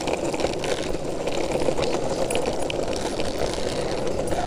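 Longboard wheels rolling fast over an asphalt path: a steady rolling noise with faint rattling clicks scattered through it.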